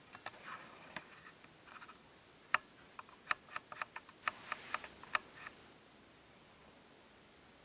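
A quick series of sharp clicks, about a dozen in three seconds, after a few softer ones near the start.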